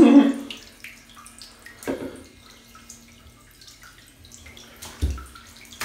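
Bathwater in a bathtub dripping and lightly splashing, many small drips and clicks, as a toddler moves in the water. A short voice sound comes at the start and again about two seconds in, and a low thump about five seconds in.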